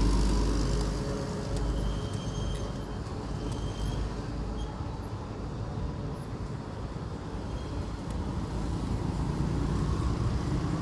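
Street traffic: a motor vehicle passing close, loudest at the start and fading over the first two seconds, then a steady low rumble of road traffic.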